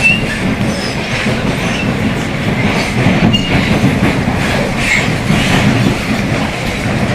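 Rio Metro Line 2 train running between stations, heard from inside the car: a steady low growl from the train's motors ('roncando') under the rumble of the wheels, with a few brief high wheel squeaks.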